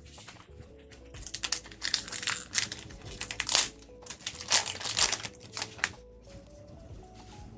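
Foil trading-card booster-pack wrapper crinkling in a run of crackly rustles from about one to six seconds in, as the pack is handled and opened, over quiet background music.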